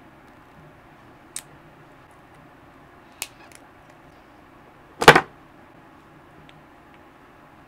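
A few faint clicks of pliers working on a lithium-ion battery pack, then a single sharp metallic snap about five seconds in. The snap is a spot-welded nickel strip tearing loose as an 18650 cell is pried free.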